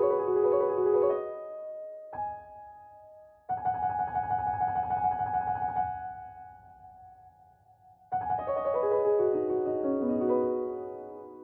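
Background piano music: short phrases of notes with pauses between, including a fast trill and a descending run of notes near the end.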